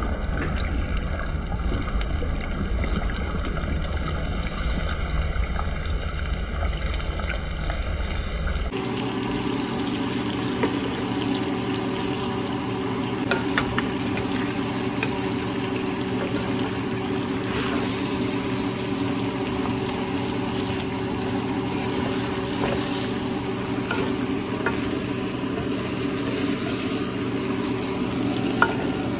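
Pork and tomatoes frying in a stainless steel pan as sliced potatoes are tipped in and stirred with a wooden spoon: steady sizzling with occasional light knocks and scrapes of the spoon. The sound changes abruptly about nine seconds in.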